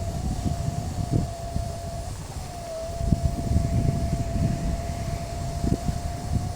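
Strong wind buffeting the microphone in gusty low rumbles, over a steady high whistling tone that dips briefly about two and a half seconds in.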